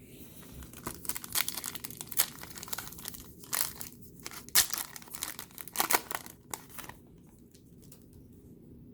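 Trading card pack wrapper crinkling and tearing as it is opened, a run of sharp crackles lasting about six seconds that then stops.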